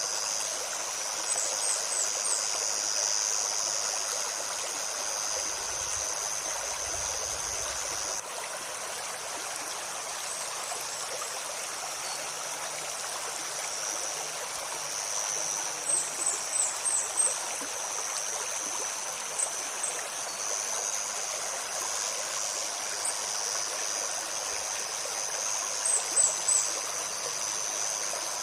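Shallow forest stream flowing steadily over stones. Short high bird chirps come in a few quick clusters, and a steady high insect drone stops about eight seconds in and comes back later.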